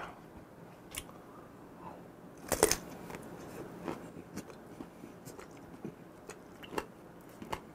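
Close-up chewing of a whole raw gizzard shad, bones included, with irregular crisp crunches and clicks. One louder crunch comes about two and a half seconds in.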